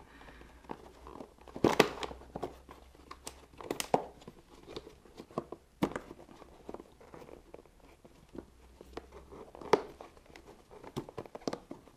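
Gloved hands working cables, a plug connector and plastic parts under a motocross bike's rear subframe: irregular rustling and small clicks and knocks, the sharpest about two, four and ten seconds in.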